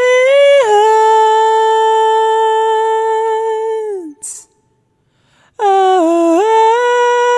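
A man singing unaccompanied in a high voice: one long held note that tails off about four seconds in, a quick breath and a brief pause, then a wordless "ah" that dips in pitch and climbs back to hold the same note.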